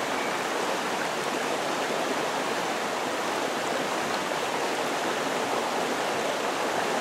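River water flowing steadily past, a continuous even rush of moving water.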